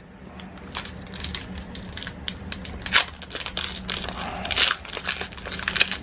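Foil Pokémon TCG booster pack wrapper being torn open in the hands, a run of sharp crinkles and crackles, loudest about halfway through.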